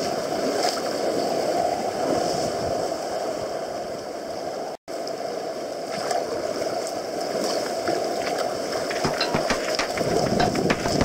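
Sea water churning and rushing around a sea kayak's hull as it is paddled through foaming white water, with more splashes near the end. The sound cuts out for an instant about five seconds in.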